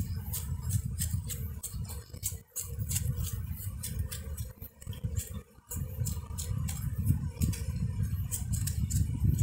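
Wind buffeting the microphone in a low rumble that drops away briefly twice, under a run of quick, short brushing strokes as a feather sweeps bees off a capped honeycomb frame.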